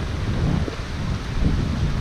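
Wind buffeting the camera's microphone, an uneven low rumble that comes and goes in gusts.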